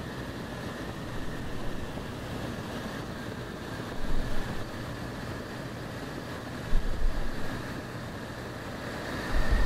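Waco YMF biplane's radial engine running steadily, heard from the open cockpit with rushing wind. Gusts of wind buffet the microphone three times, about four seconds in, about seven seconds in, and near the end.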